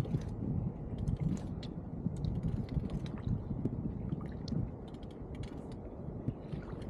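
Fishing reel being wound in on a hooked fish: a scatter of small mechanical clicks from the reel's gears over a low rumble.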